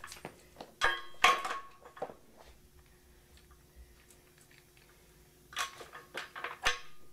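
Metal clanking and rattling of a chain pipe wrench being fitted around a steel pipe: a burst of clinks and knocks about a second in, then quiet, then another run of clanks near the end.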